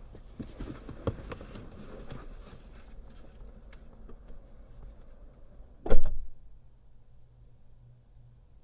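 Light rustling and handling clatter, then a car door shutting with a single loud thud about six seconds in, after which the cabin goes quiet.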